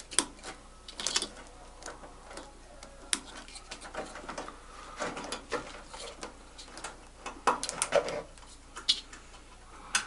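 Plastic wire-harness connectors and loose wires being handled on a washing machine's control board: irregular light clicks and rustling as plugs are worked into place.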